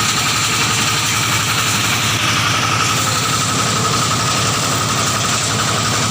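Motor-driven grass chopper (chaff cutter) running steadily on a test run: an even, fast engine pulse with a steady high whine over it.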